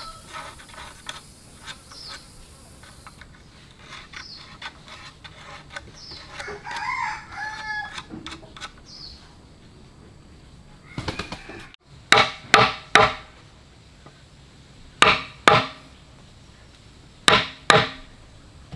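Domestic chickens clucking, with a rooster crowing about six seconds in. From about halfway on there are loud, sharp knocks in groups of two or three.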